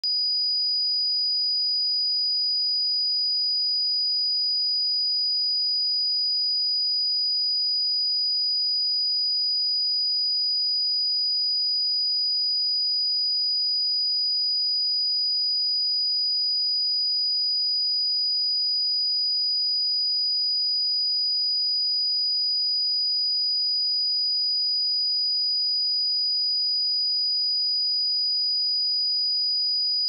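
A pure 4928 Hz sine-wave test tone, one steady high-pitched note held at constant level, used to check speakers and headphones.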